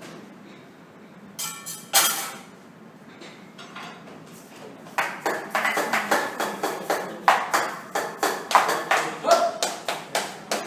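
Voices in a room with a quick run of sharp hits, claps or taps, that begins about halfway through, after two brief louder knocks near the start.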